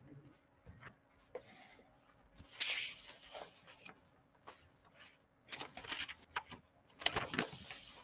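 Faint scattered clicks and rustling handling noise at a computer, with a few short hissy bursts.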